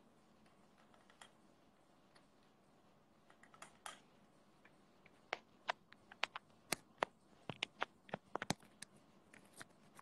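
Fingers tapping on a smartphone's touchscreen and case close to its microphone: light, irregular clicks, a few at first, then a quick, uneven run over the second half.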